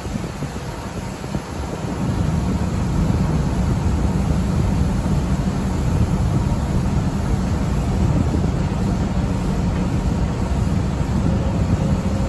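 Steady low rumble and hum from a Tokyu train standing at an underground platform with its doors open, its idling auxiliary and air-conditioning equipment running.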